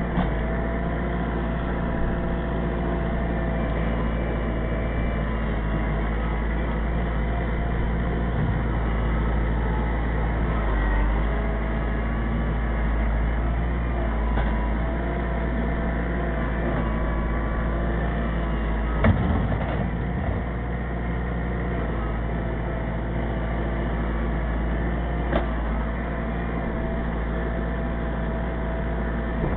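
Kubota L4400 HST compact tractor's four-cylinder diesel engine running steadily under the operator's seat. A few brief knocks and clunks come about two-thirds of the way in and again near the end.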